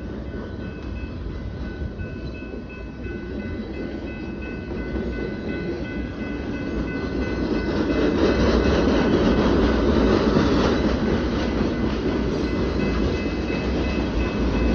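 Military freight train of loaded flatcars rolling past a grade crossing, wheels rumbling and clacking on the rails, growing louder about halfway through. A faint steady high tone sounds through it.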